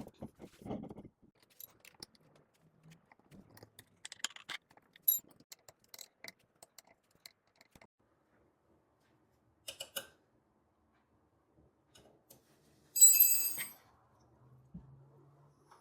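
Scattered clicks and knocks of metal parts being handled, with a few short metallic rings, the loudest about 13 seconds in: fittings and pins on the legs of an electric potter's wheel being worked during the leg-height adjustment.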